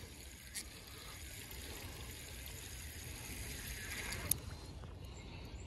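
Faint whir of a spinning reel being cranked and water swishing as a hooked fish is drawn across the surface, over a low steady rumble. There is a light click just after the start and a sharper one about four seconds in.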